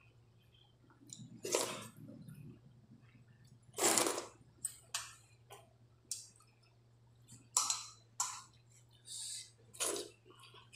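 Wet eating sounds from watery rice (pani bhat) with mango curry eaten by hand: short slurps and squelches, one about every second, over a faint low steady hum.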